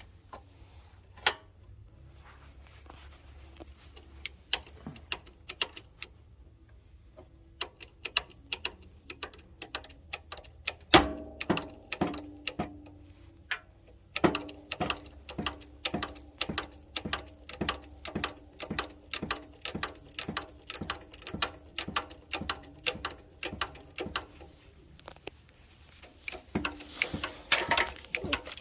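Metal clicking over and over, about two to three sharp clicks a second, each with a brief ring; a few scattered clicks lead in before the steady run starts.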